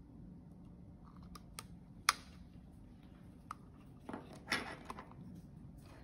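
Small handling clicks and rustles as hands work wires and a small plastic connector on a table: a few light ticks, a sharper click about two seconds in, and a short rustle near the two-thirds mark.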